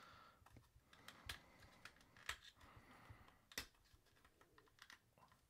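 Faint, irregular clicks and taps of a small acrylic display case being handled and pried at, its lid stuck shut and refusing to come off.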